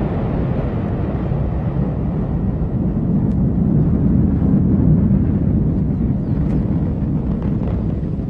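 Ariane 5 rocket's two solid rocket boosters and main engine during ascent: a loud, steady deep rumble, swelling a little about halfway through.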